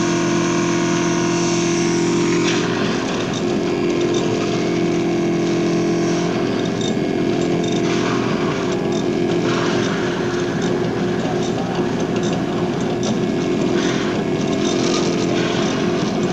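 Cellulose insulation blowing machine running steadily with a droning hum. About two and a half seconds in the sound shifts and a rushing hiss joins the drone as insulation is blown out through the hose.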